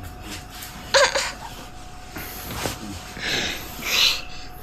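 A young child's short vocal sound about a second in, followed by breathy huffs near the end.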